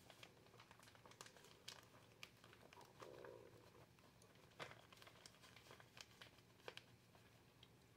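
Faint crinkling of a plastic grocery bag handled at its opening, with scattered small ticks.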